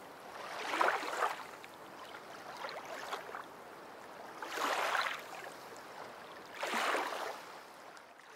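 Faint rushing swells of noise, like small waves washing in and drawing back, rising and fading about every two seconds.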